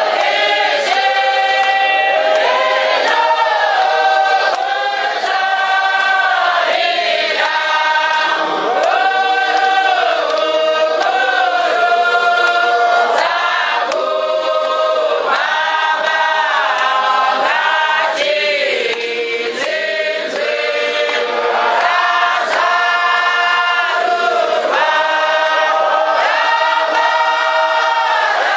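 Church choir singing a Shona hymn a cappella, several voices in harmony holding long notes that slide from one pitch to the next, at a steady loudness.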